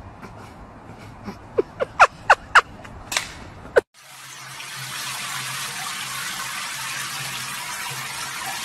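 Overhead rain shower head spraying water in a steady hiss, starting suddenly about four seconds in. Before it comes a quick run of short, sharp, rising squeaks.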